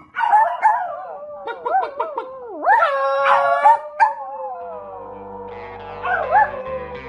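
Small tan chihuahua-type dog howling with its head thrown back: a run of short wavering howls, then one long howl that slowly falls in pitch. Background music comes in about halfway through.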